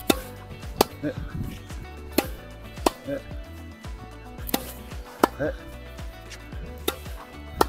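Tennis rally: balls struck by the strings of Dunlop CX 400-series rackets, a sharp pock about every second, with bounces on the court in between, over background music.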